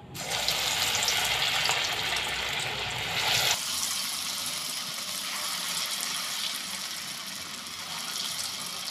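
Moong dal mangode batter dropped into hot oil in a kadhai, the oil sizzling hard at once. About three and a half seconds in, the sound drops abruptly to a steadier, lighter fizzing crackle as the fritters deep-fry.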